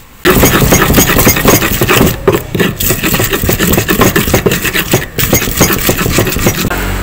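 Stone pestle (ulekan) grinding and crushing shallots, garlic, chilies and candlenuts in a stone mortar (cobek), in fast, rough scraping and knocking strokes. It starts suddenly and stops just before the end.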